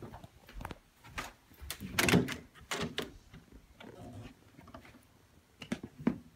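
A hinged glass patio door being unlatched and opened, heard as a series of clicks and knocks. The loudest knock comes about two seconds in, and a few lighter clicks follow near the end.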